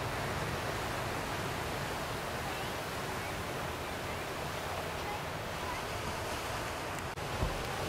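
Steady rushing noise of ocean surf breaking, with a low rumble of wind on the microphone.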